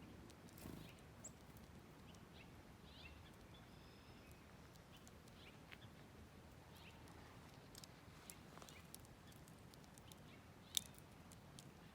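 Near-silent outdoor quiet with faint scattered ticks and a few brief, high bird chirps. One sharper click comes near the end.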